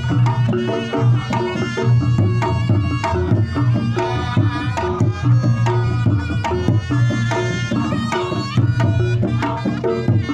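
Reog Ponorogo ensemble playing: rapid kendang hand-drumming with a wavering slompret (Javanese shawm) melody over a steady deep low tone.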